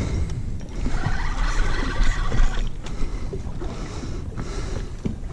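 Wind buffeting the microphone and water sloshing against a small boat's hull, a steady rough rumble.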